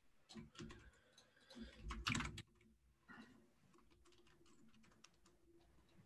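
Faint computer keyboard typing in quick flurries of keystrokes, most of them in the first two and a half seconds, then a few scattered taps.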